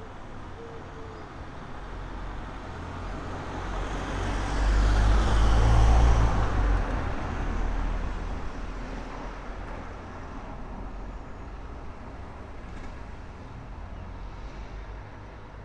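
A single road vehicle passes along the street: a deep rumble with a broad rush of noise that builds to its loudest about five or six seconds in, then slowly fades away.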